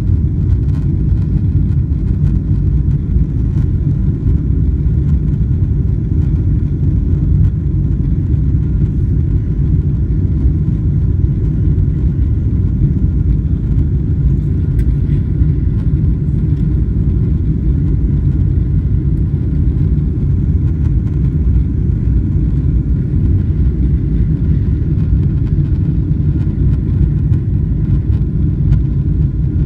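Steady, loud low rumble in the passenger cabin of a Boeing 777-300ER, the airliner's engine and running noise heard from inside, holding an even level throughout.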